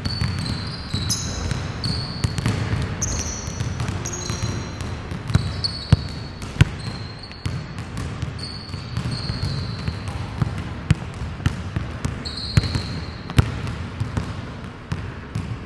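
Ambisonic recording made in a basketball gymnasium: basketballs bouncing on the court floor as sharp, irregular thuds. Short high squeaks, typical of sneakers on the hardwood, come and go over a steady background of the hall.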